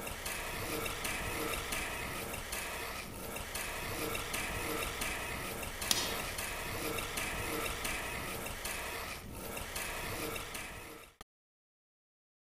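Mechanical sound effect of ratcheting, grinding gears, a steady dense clatter, accompanying a body turning into tank parts. There is a sharp click about six seconds in, and the sound cuts off abruptly about eleven seconds in.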